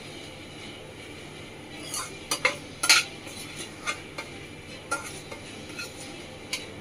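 A metal spatula stirring and scraping vermicelli in a stainless steel kadhai, with several sharp clinks against the pan, the loudest about three seconds in, over a steady low sizzle of frying.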